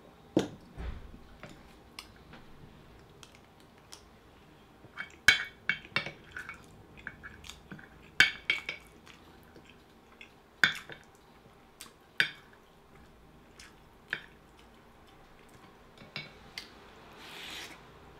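White ceramic spoon and chopsticks clinking and scraping against a glass dish of curry in sharp scattered taps, the loudest a few seconds apart. Just after the start a drinking glass is set down on the table with a thud.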